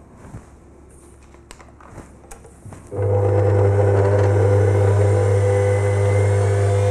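Kenwood kMix stand mixer's motor switched on about three seconds in, then running steadily as it drives the meat mincer attachment with pork being fed in. Before that, a few light clicks and knocks as the attachment is handled.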